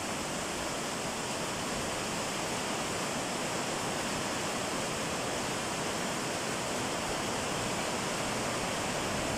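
Heavy rain falling steadily on a water-covered paved lane, drops splashing into standing water with an even hiss.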